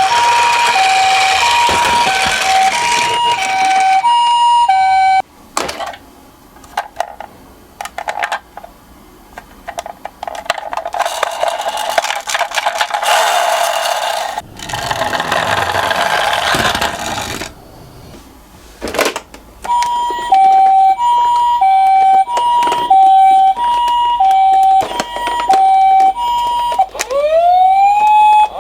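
Japanese-style two-tone ambulance siren, switching between a high and a low pitch about twice a second, cuts off about five seconds in. Then a long stretch of rattling, rolling noise with clicks from the miniature cars running down the slope, before the two-tone siren returns about 20 seconds in and changes to a rising wail near the end.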